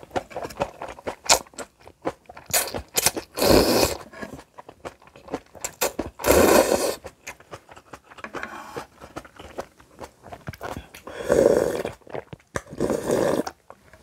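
A person eating janchi guksu noodles and spicy kimchi: crunching and chewing with many small wet clicks, broken by four loud slurps of noodles, at about three and six seconds in and twice near the end.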